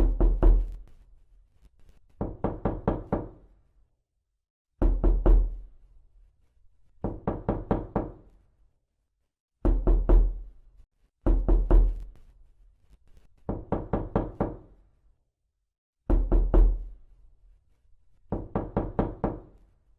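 Knocking on a door, repeated about every two seconds in quick bursts of four or five raps. The bursts alternate louder and softer as the 8D processing pans the knocking around the listener.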